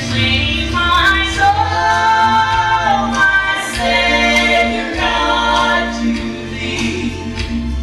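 Gospel singing: voices carry a slow melody with long held notes over steady low bass notes.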